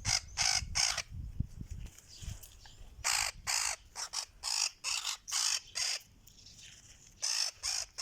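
Golden-tailed woodpecker giving harsh, rasping squawks in short series, about three a second at the fastest: the distress calls of a bird being held.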